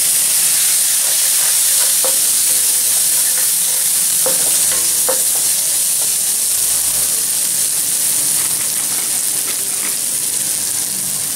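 Shredded chicken, onion and tomato frying with soy sauce in a nonstick wok: a steady sizzle, with a wooden spatula stirring and scraping against the pan now and then.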